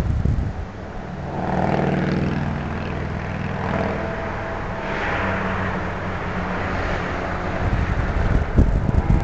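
Cars driving past one after another, each swelling and fading as it goes by. Gusts of wind buffet the microphone at the start and again near the end.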